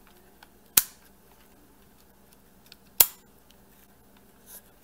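Lens cover switch of a Sony HDR-CX240 Handycam camcorder slid to open and close the built-in lens cover: two sharp clicks about two seconds apart, the second louder.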